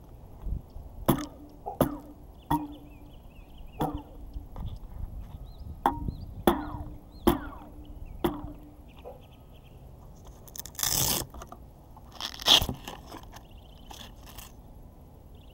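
A hand-held action camera jostled as it is carried at a walk: about eight sharp knocks, each with a short hollow ring, come at an even walking pace. Near the end come two rubbing scrapes of handling noise on the camera's microphone, the second louder.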